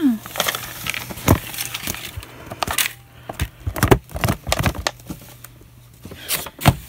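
Paper cut-outs being shaken out of a box into a bowl: rustling and clattering with a number of sharp clicks and knocks.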